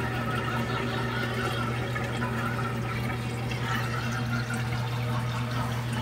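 Steady running water over a constant low hum.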